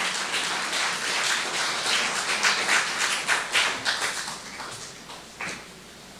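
Audience applause: dense clapping that thins out and dies away about five seconds in.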